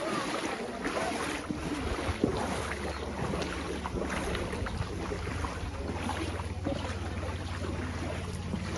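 Wind buffeting the microphone over an outdoor wash of noise. About a third of the way in, a steady low engine hum starts and runs on.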